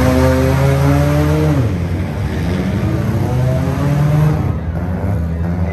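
Demolition derby car engines revving: one climbs in pitch, then drops away sharply about a second and a half in, and another revs up briefly near the four-second mark, over a steady background of engine and arena noise.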